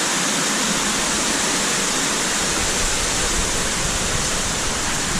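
Steady rush of water from a cave waterfall or stream, an even noise that holds constant throughout.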